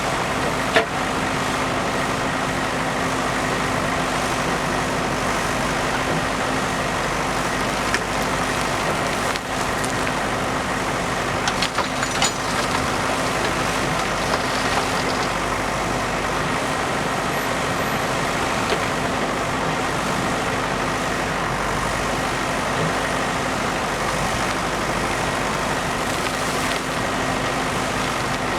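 JCB backhoe loader's diesel engine running steadily, with a few sharp knocks about a second in and again around twelve seconds in.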